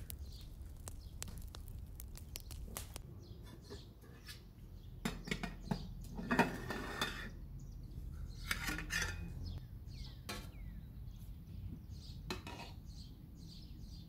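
A metal spoon scraping and clinking against an aluminium cooking pot of rice and its lid, in several clusters as the rice is scooped out. Birds chirp faintly between them.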